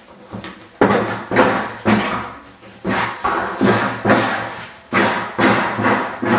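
A series of dull thumps, roughly two a second, each dying away quickly.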